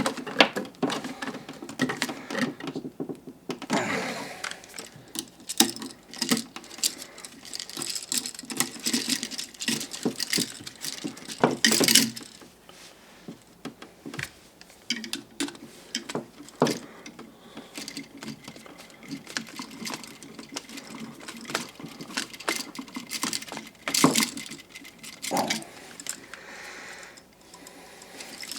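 Small metallic clicks and rattles of hand tools and copper wire as an electrical outlet's wires are pinched and fastened to its terminal screws. The handling is irregular, with a few sharper clicks about twelve seconds in and again near the end.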